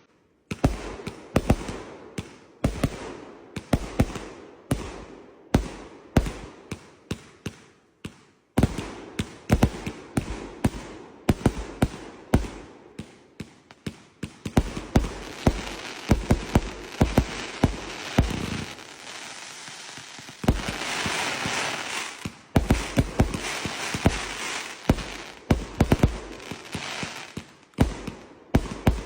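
Fireworks going off: a long run of sharp bangs, one to three a second, with a short break about eight seconds in and about two seconds of denser, steadier crackling hiss around twenty-one seconds in.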